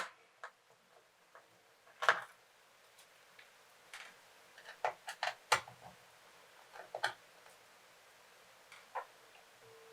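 Scattered light clicks and taps of a small screwdriver working the screws out of a laptop's LCD panel, irregular, with the sharpest clicks at the start and about two seconds in.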